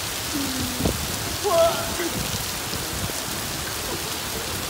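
Hail mixed with heavy rain pelting wet pavement, a steady hiss with no let-up. A person's short vocal sounds come through it about half a second and a second and a half in.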